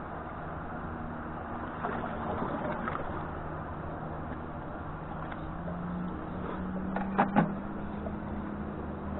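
Steady wash of sea water among the jetty rocks with a low, steady engine hum under it that swells a little past the middle. Just past seven seconds in come two sharp clicks close together, the loudest sounds here.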